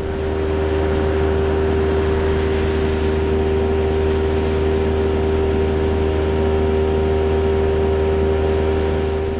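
Bass boat's outboard motor running steadily at cruising speed, one constant engine tone over a low hum.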